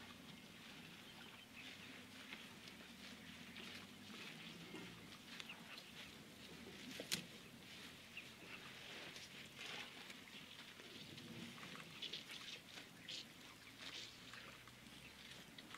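Faint outdoor ambience of soft, scattered ticks and chirps over a faint low hum, with one sharp click about seven seconds in.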